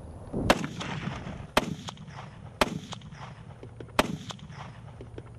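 M1 Garand semi-automatic rifle firing .30-06 rounds: four shots about a second apart, each followed by a short echo, the first the loudest.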